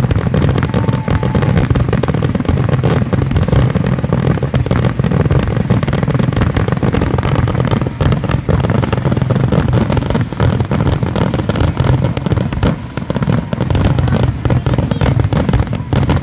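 Aerial fireworks finale barrage: a dense, unbroken run of rapid, overlapping shell bursts and crackle, loud throughout.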